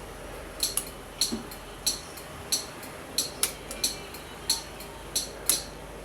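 Yamaha Majesty 125 FI scooter being cranked on its electric starter without firing. Over a steady low background come sharp metallic clinks, roughly every two-thirds of a second and sometimes doubled, each ringing briefly; this is the abnormal noise heard while the engine cranks but won't start.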